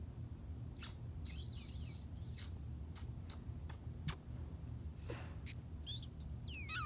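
High squeaky kissing sounds and lip clicks made to call a cat, several short chirps in the first half, scattered clicks, and a falling squeak near the end.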